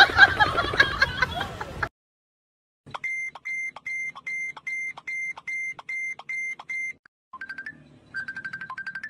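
A loud jumble of sound cuts off about two seconds in. After a second of silence, a mobile phone's alarm beeps evenly, about two and a half short high beeps a second for four seconds. Near the end a lower, fast-pulsing phone tone starts.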